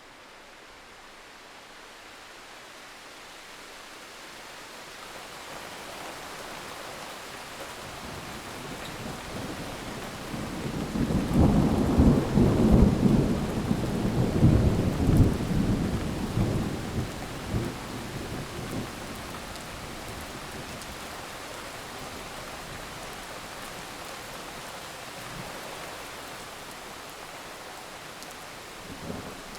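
Thunderstorm: steady rain fading in, with a long, deep rolling peal of thunder about ten seconds in that crackles for several seconds before dying away into the rain, and another rumble starting right at the end.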